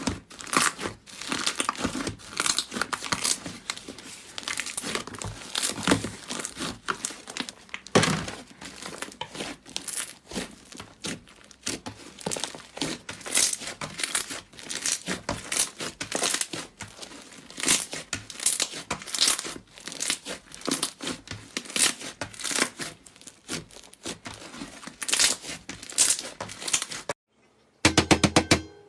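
Slime being squished and stretched by hand, with dense, irregular crackling and popping. Near the end it stops briefly, then gives a quick run of sharp clicks.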